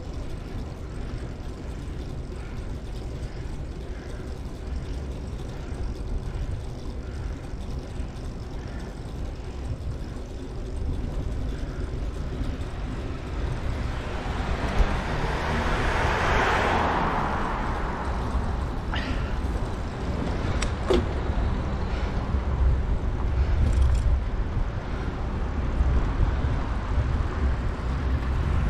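Steady low rumble of a bicycle ride on a road, with a vehicle passing close about halfway through, swelling and then fading over a few seconds.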